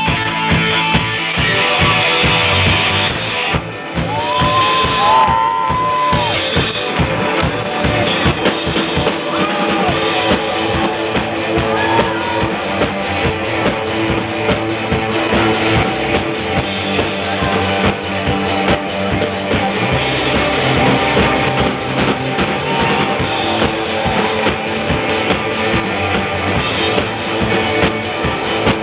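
Live rock band playing loud, dense rock with electric guitar and drum kit keeping a steady beat. A held high note bends briefly about four seconds in.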